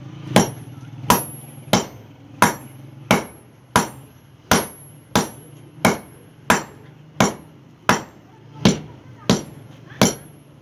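Steady hand-hammer blows on iron at an anvil while forging a chisel: sharp metallic strikes at an even pace of about three every two seconds, each with a brief high ring.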